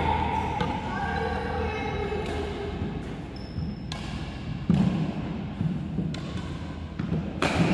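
Badminton on a wooden indoor court: scattered sharp hits and thuds from rackets, shuttlecock and players' feet on the floor, the clearest about halfway through and near the end as a new rally starts.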